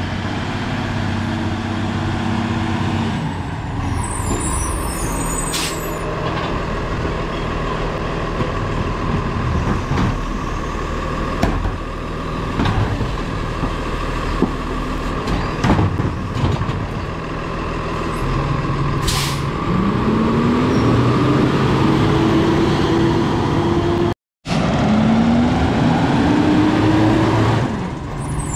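Side-loading garbage truck (Freightliner with a Labrie Expert 2000 body) with its diesel engine running, with air-brake hisses and scattered clanks as a cart is tipped into the hopper. Twice in the second half the engine pitch rises as it revs up to drive the hydraulics.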